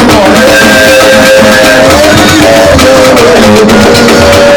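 Music: a melody of long held notes over a steady accompaniment, played loud.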